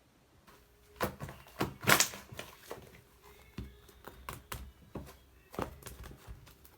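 Brown sugar bubble tea slime being squeezed and worked by hand, giving irregular sticky clicks and pops, loudest about two seconds in.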